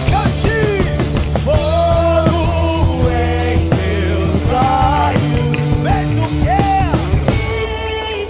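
Live worship band music: a woman singing a melody over a full band with a drum kit keeping a steady beat.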